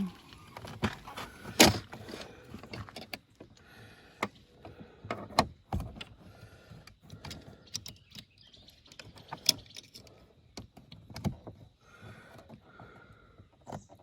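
Irregular clicks, taps and light knocks of a plastic interior door handle and its small metal pin and spring being handled and fitted, with a few sharper snaps about one and a half, five and nine and a half seconds in.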